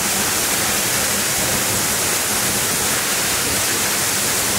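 Waterfall rushing steadily: a loud, even hiss of falling water with no breaks.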